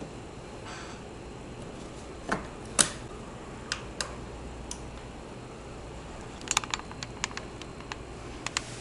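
Sharp clicks and small knocks of hands handling a mini-ITX PC case and its parts, over a steady low hum. A quick run of clicks comes near the end.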